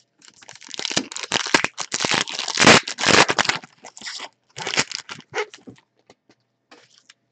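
Trading-card pack wrappers being torn open and crinkled by hand: a dense crackling rustle for about four seconds, loudest near the middle, then a few short rustles.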